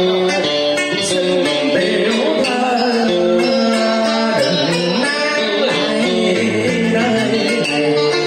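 A man singing a Vietnamese song into a microphone over a plucked guitar accompaniment, amplified through stage loudspeakers.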